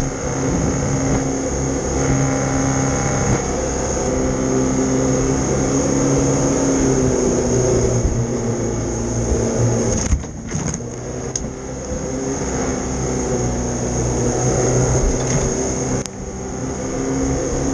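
River jet boat's engine running hard under way, its pitch rising and falling with the throttle, over the rush of water under the hull. It eases off briefly about halfway through and again near the end.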